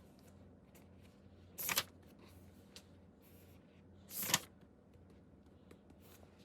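Two paper diary pages being turned, each a brief papery swish, about two and a half seconds apart.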